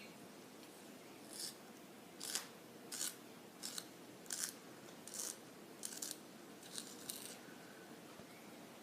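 Pencil lead stroking across paper: about nine short strokes in an even rhythm, roughly one every two-thirds of a second, starting about a second and a half in and stopping a little after seven seconds.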